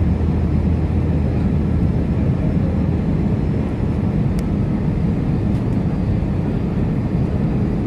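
Steady cabin noise inside an Airbus A320 airliner: the engines' low drone and rushing air, unbroken throughout.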